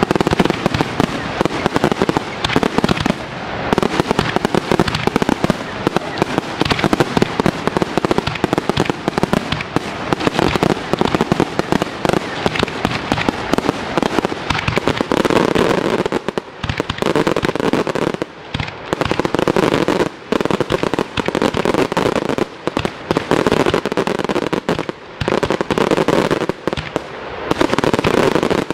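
Professional display fireworks: a dense barrage of aerial shells launching and bursting, heard as rapid overlapping bangs and crackles that thin out briefly a few times.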